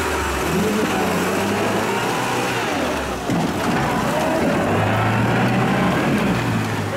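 UAZ-469 off-road vehicle's engine running under load as it crawls through deep mud, its revs shifting about three seconds in and then holding steadier, while the front wheel churns in the soil.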